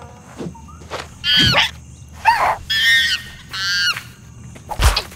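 Cartoon monkey calls: four short, high-pitched squeals and chatters in quick succession, then a heavy thump a little before the end.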